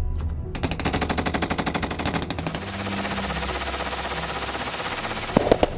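Machine gun firing long automatic bursts, about ten shots a second, turning into a denser, steady rattle of fire, with a few separate sharp shots near the end.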